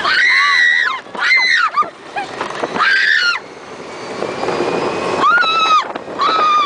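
Passengers screaming in an open ride car at speed: several high-pitched screams, each under a second long, with rushing wind on the microphone between them.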